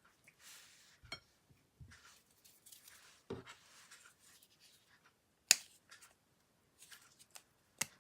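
Slime being mixed and pressed, soft sticky rustling broken by several sharp clicks and pops, the loudest about five and a half seconds in and another near the end.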